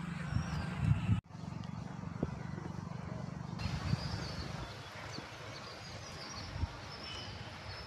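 Outdoor ambience with a low rumble and, from about halfway in, faint short bird chirps.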